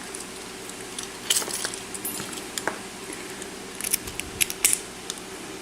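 Small metallic clicks and scrapes as a clip-removal tool works the retaining clips off a Tesa padlock's lock cylinder, in scattered clusters about a second in and again around four seconds in.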